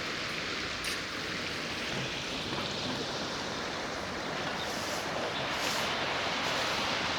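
A steady rush of sea water, waves washing along the shore, with no speech over it.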